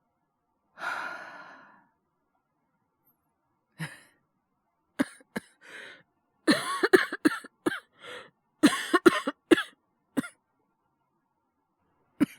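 A young man's voice with a cold: a long breathy exhale about a second in, then a coughing fit, with single coughs at first and then rapid clusters of harsh coughs from about six to ten seconds in, and one more cough near the end.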